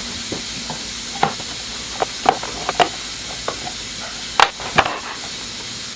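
Irregular sharp clicks and knocks of a flathead screwdriver and metal parts as a dirt bike subframe is worked into place, about a dozen in all, the loudest near the end, over a steady hiss.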